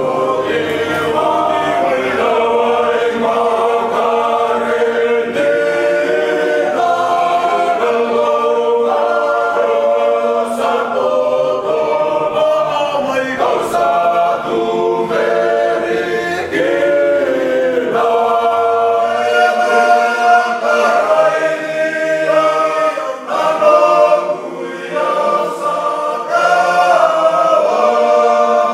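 A group of young Fijian men singing a cappella in several-part harmony, holding long chords that move together from note to note.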